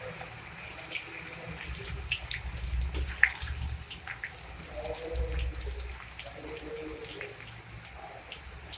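Samosa pastry pieces deep-frying in hot oil in an aluminium kadai, sizzling and bubbling, while a metal spatula stirring them scrapes and taps against the pan now and then.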